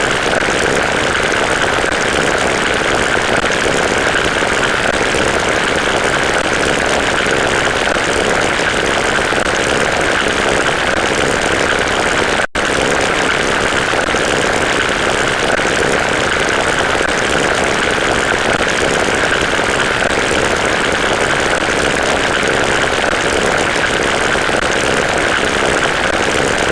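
A steady, loud drone with an engine-like hum, unchanging throughout except for an instant's cut-out about twelve seconds in.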